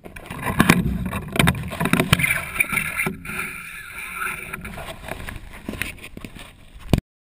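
Wind rushing over a paraglider pilot's close-up action-camera microphone, with knocks and rustles as a gloved hand touches the camera in the first couple of seconds; the sound cuts off abruptly near the end.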